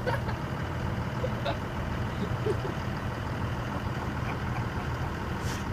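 Heavy construction-equipment engine idling steadily.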